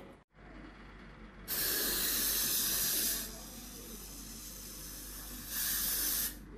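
Aerosol wound spray hissing onto a cat's freshly stitched amputation stump in two bursts. A long one runs about a second and a half, and a shorter one comes near the end.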